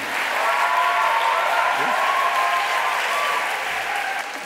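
An audience of schoolchildren applauding, with high children's voices cheering through the clapping. It eases off near the end.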